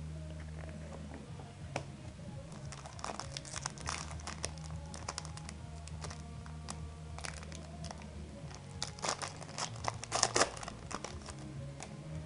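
Foil wrapper of a Pokémon trading card booster pack crinkling and tearing as it is opened by hand and the cards are drawn out: a run of sharp crackles, loudest about nine to ten and a half seconds in.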